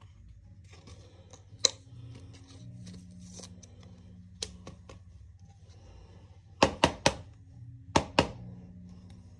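Sharp clicks and taps from handling hockey trading cards on a hard surface. There is one tap, another a few seconds later, then three quick clicks and, a second on, two more. Faint rustling and a low steady hum run underneath.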